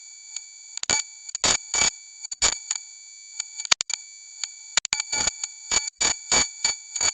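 Electronic noise sound effect: a steady, high-pitched whine of several tones, broken again and again by irregular crackling bursts of static, with a few brief dropouts.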